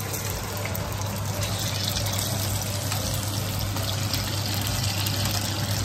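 Steamed momos sizzling in an oiled frying pan on the stove, a steady crackling hiss over a constant low hum.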